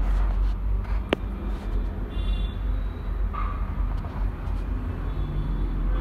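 Steady low background rumble, with a single sharp click about a second in.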